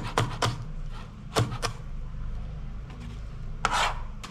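A kitchen knife chopping onion and green chillies on a plastic cutting board: sharp knocks of the blade on the board in two quick groups, then a longer, noisier stroke near the end. A steady low hum runs underneath.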